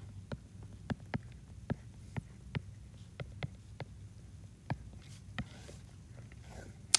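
Stylus tip tapping and clicking on a tablet's glass screen while writing, about fifteen light irregular clicks with a sharper one at the end, over a low steady hum.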